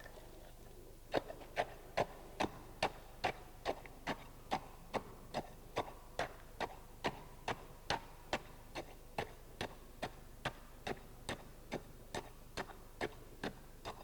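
Steel tamping rod striking down into a freshly filled layer of concrete in a test mould, a steady series of sharp knocks about two to three a second, compacting the layer to drive out the air voids.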